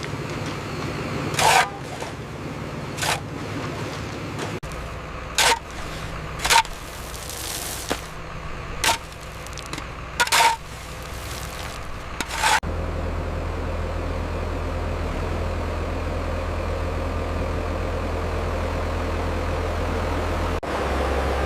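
Heavy construction machinery running, with a steady low engine drone. Through the first half a series of sharp clanks and knocks sounds every second or two. After that the engine drone carries on alone.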